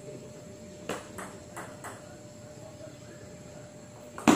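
Table tennis ball knocking off paddles and table in a rally: four quick, light knocks between about one and two seconds in, then a much louder, heavier thump near the end as a hard stroke is played.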